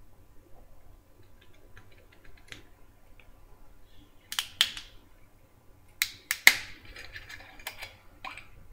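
Aluminium screw cap on a wine bottle being twisted open by hand, its seal cracking with a series of sharp clicks: faint ticks at first, two clicks about four and a half seconds in, then a louder cluster about a second and a half later.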